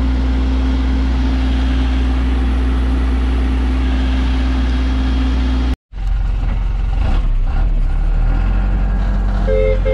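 Truck engine running steadily. It cuts out for an instant about six seconds in, then returns less even for a couple of seconds before settling into a steady drone again.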